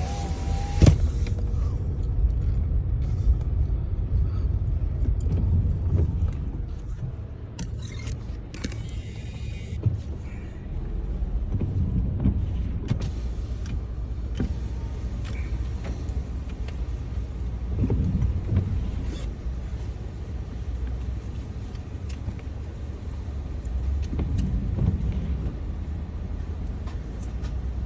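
Low rumble of a car idling and creeping forward, heard from inside the cabin, with a sharp click about a second in and a few fainter knocks.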